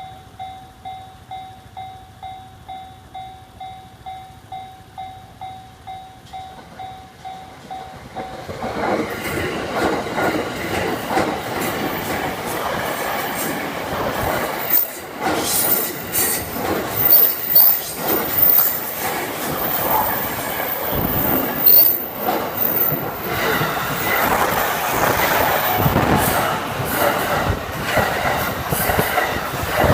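Japanese level-crossing bell ringing at about two strikes a second. About eight seconds in, an EF66 electric locomotive hauling Chiki rail-carrying flat wagons passes loudly. Its wheels clatter over the rail joints and give a thin, high squeal.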